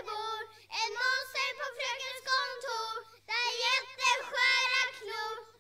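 A child's high voice singing in three phrases, with short breaks between them.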